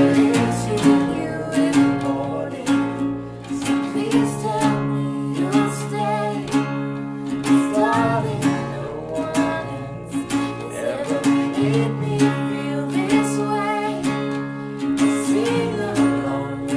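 Acoustic folk-rock song: two acoustic guitars strummed over an acoustic bass guitar, with a woman singing lead and a man joining in harmony.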